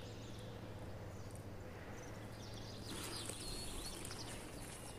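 Quiet outdoor ambience: a low steady hum under a faint hiss, with a few faint, high bird chirps about halfway through.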